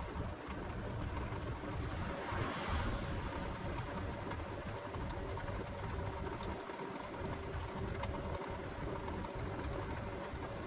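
A small motor whirring steadily, with a few constant hum tones over it and a brief brighter swell about two and a half seconds in.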